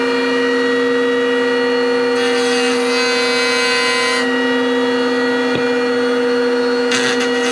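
Electric router running at full speed with a loud, steady high whine, rabbeting the edge of a molded trim piece. A harsher hiss joins about two seconds in and again near the end as the bit cuts.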